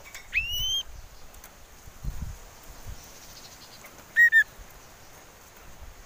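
Common iora whistling: one rising whistle that levels off near the start, then two short, sharp notes about four seconds in, the loudest sounds here. A dull low thump comes about two seconds in.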